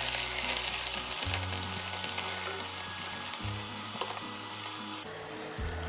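Pieces of katla fish, rubbed with turmeric and salt, sizzling steadily as they fry in hot oil in a kadai.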